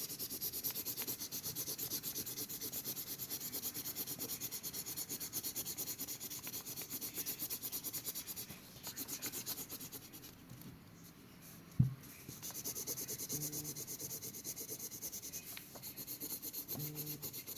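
Rapid back-and-forth coloring strokes rubbing on paper, about four or five a second, easing off for a few seconds in the middle, with one sharp tap about twelve seconds in.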